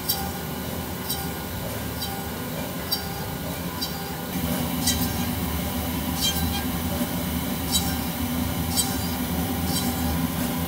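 Automatic drilling machine boring string holes in a badminton racket frame. It gives a steady motor hum with a sharp click about once a second, and grows louder about four seconds in.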